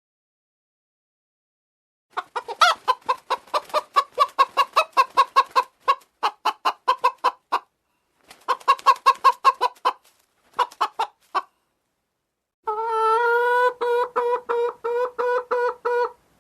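Poultry calling in rapid runs of short pitched calls, about four or five a second, in three bursts separated by short pauses, then a longer, steadier pulsed run near the end.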